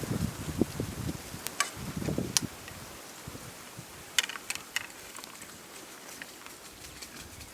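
Wild hogs grunting softly, twice in short low bursts, with scattered sharp clicks around them.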